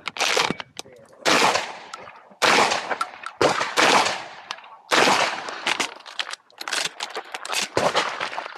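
A string of about eight shotgun shots, roughly one a second, each sharp report trailing off in a long echo.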